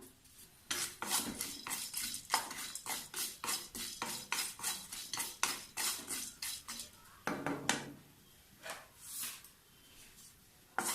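A spatula stirring and scraping whole cloves and cinnamon sticks as they dry-roast in a pan: quick repeated scrapes and clinks, about three or four a second. The strokes thin out after about seven seconds and it goes quieter.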